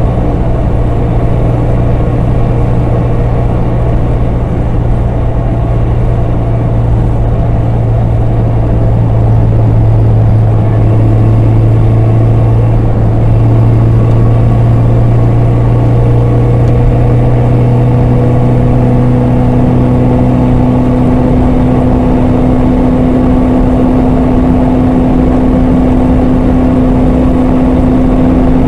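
Vehicle engine and road drone heard from inside the cab while cruising at highway speed: a steady low hum, joined by a higher steady tone about two-thirds of the way in.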